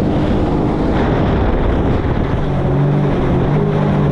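Sea-Doo Explorer Pro 170 jet ski running at speed over choppy water, its engine note steady under heavy wind buffeting on the microphone and the rush of spray. The engine note changes about two seconds in.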